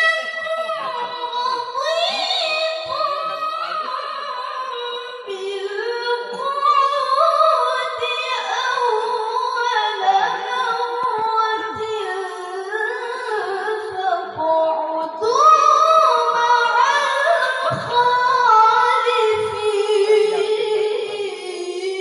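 A female qari's voice reciting the Quran in the melodic tilawah style into a microphone: long held, ornamented phrases that climb and fall in pitch, with short breath pauses about five seconds in and again about fifteen seconds in.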